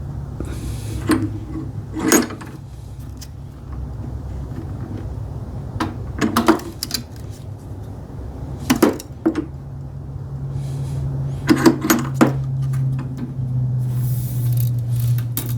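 Woodworking clamps being eased off: about eight sharp metal clicks and knocks, some in quick pairs, over a steady low hum.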